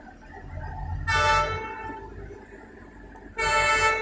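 Two short horn toots, about two seconds apart, over the low rumble of the Vande Bharat electric train rolling past.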